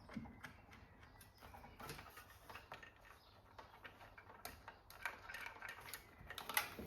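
Faint, irregular small clicks and taps of hands working on PC parts and cables inside the case, with one sharper click near the end.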